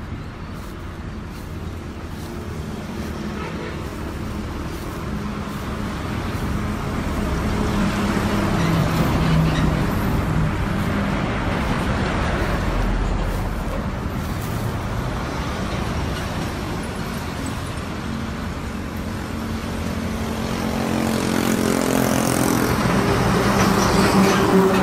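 Road traffic going by, swelling about a third of the way in; near the end a heavy container truck passes close, its diesel engine humming low and getting louder.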